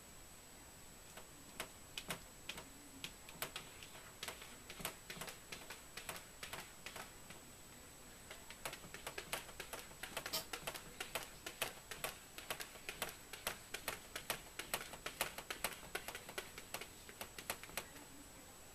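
A cat's claws clicking and scratching on the glass of a framed map in quick, irregular strokes, sparse at first and coming several a second from about halfway through.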